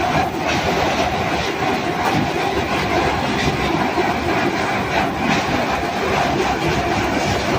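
Air conditioner running with a loud, continuous rattling rumble.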